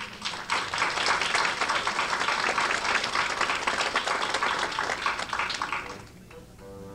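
Audience applauding, many hands clapping at once. The applause fades about six seconds in as instrumental music starts.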